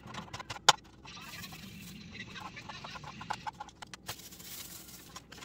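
A plastic produce bag rustling and crinkling as a bell pepper is taken out of it, with sharp knocks of items set down on the counter, two of them about a second in.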